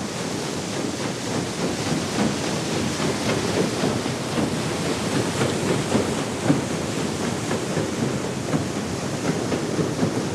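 Paddle steamer's paddlewheels churning the water: a dense, continuous churning full of small irregular knocks and splashes.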